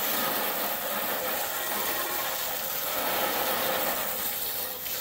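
A steady stream of hot water from a garden hose spray nozzle splashing into a greasy metal roasting pan, a constant hiss.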